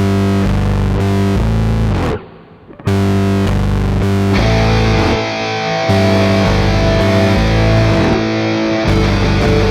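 Background rock music with a distorted electric guitar riff. It breaks off briefly about two seconds in, then comes back and grows fuller and brighter from about four seconds in.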